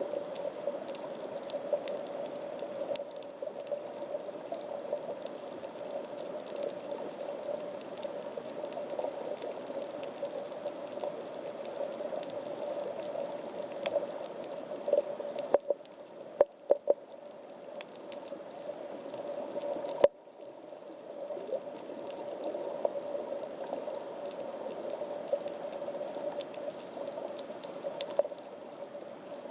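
Underwater reef ambience picked up through a waterproof camera housing at about 15 m depth: a steady wash with constant faint crackling, broken by a few sharper clicks about sixteen and twenty seconds in.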